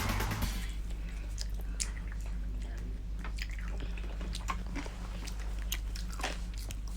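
Close-up chewing and biting of sticky chicken feet adobo: scattered wet mouth smacks and small clicks, over a low steady hum.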